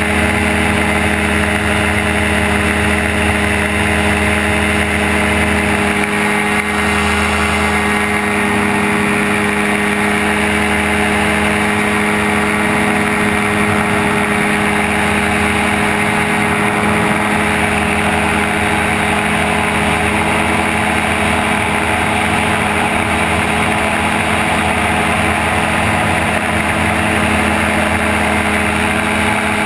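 Gyrocopter engine and pusher propeller running steadily in flight, with wind noise over the open cockpit. The engine note drops right at the end.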